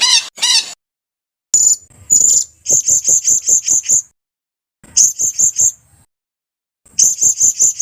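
Songbird singing: phrases of rapid, high-pitched chirps at about five notes a second, each phrase lasting about a second, separated by silent gaps.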